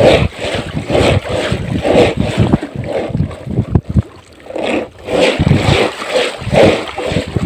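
A wet fishing net full of small fish and shrimp being shaken and hauled over a basket: repeated swishes about twice a second as water and catch spatter onto the wooden deck and plastic basket, with a short lull midway. Wind rumbles on the microphone underneath.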